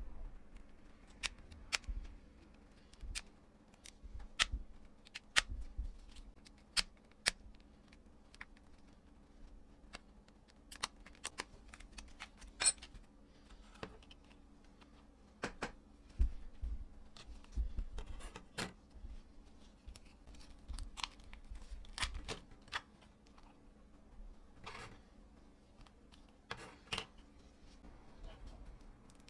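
Thin metal pry tool working apart the plastic frame and internals of a Nokia Lumia 620 phone: irregular sharp clicks and small scrapes as clips and parts come loose, a few at a time, with short pauses.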